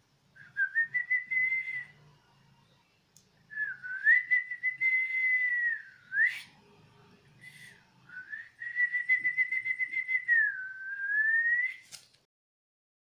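A person whistling three long, mostly level notes, each rising into pitch at the start; the second ends in a quick upward sweep.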